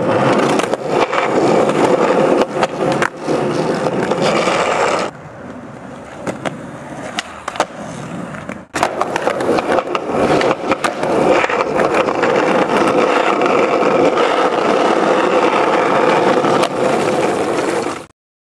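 Skateboard wheels rolling over concrete pavement with a steady, loud rolling noise, broken by sharp clacks of the board. The rolling drops to a quieter level for a few seconds near the middle, then comes back and cuts off suddenly near the end.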